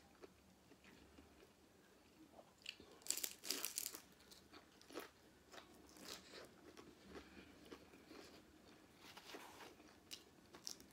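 Close-up crunching of a crispy fried egg roll (lumpia) being bitten and chewed. The loudest run of crunches comes about three to four seconds in, with softer, scattered crunches after.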